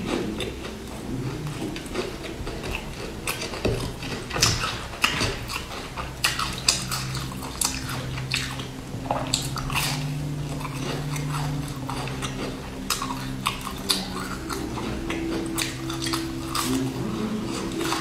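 Close-up crunchy bites and chewing of a sesame-coated chocolate sandwich biscuit, many sharp irregular crunches. A steady low hum runs underneath.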